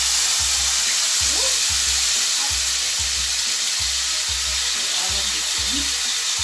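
Blended wet seasoning paste sizzling loudly in hot vegetable oil in a saucepan, a steady dense hiss, with low regular pulses about twice a second underneath.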